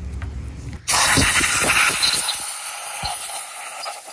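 Compressed-air blow gun on a shop air hose hissing in a long blast. It starts abruptly about a second in, is loudest for the first second, then carries on somewhat weaker.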